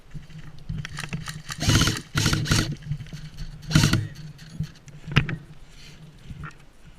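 Airsoft electric guns firing short full-auto bursts, three longer rattles and a brief one, over a steady low hum.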